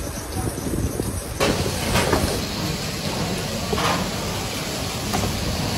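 Commercial kitchen background noise: a steady hiss and rumble whose character changes abruptly about a second and a half in, with a couple of brief clatters.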